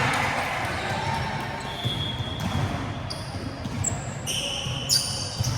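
Players' sports shoes squeaking on a hard indoor court floor during volleyball play: several short, high squeaks from about two seconds in, bunching near the end, over irregular low thuds of footsteps.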